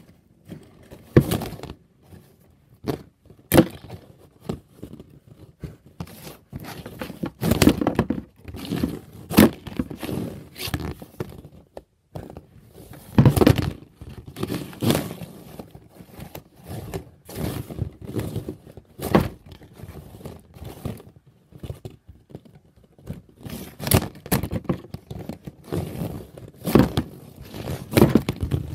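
K'nex toy battlebots being bashed together by hand: plastic rods and connectors clattering and knocking in many sharp hits, with scraping over cardboard.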